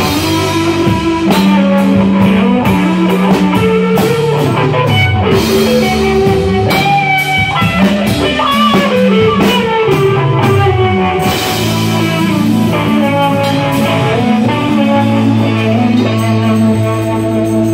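Live rock band with electric guitar, bass and drum kit playing loud and heavily, the guitar bending notes over the rhythm with cymbals crashing. In the second half the band settles onto long held notes, and the cymbals drop out near the end.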